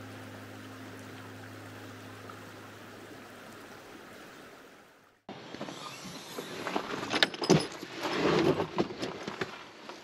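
Low sustained music notes over a steady hiss, fading out until a sudden cut about halfway through; then a run of irregular, close knocks, clicks and rattles, louder than the music.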